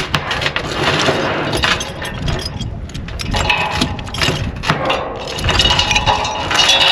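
Steel being hammered: dense, irregular clanks and knocks with a metallic ring.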